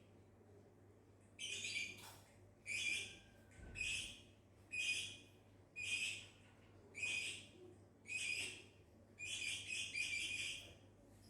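Lovebird making high-pitched chattering calls in short bursts about once a second, around eight in a row, the last drawn out into a longer broken chatter.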